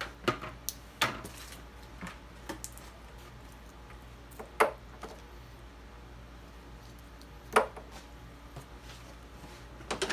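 Handling noises: scattered knocks, taps and rustles as boat parts and packaging are picked up and set down, with two sharper knocks around the middle and later on.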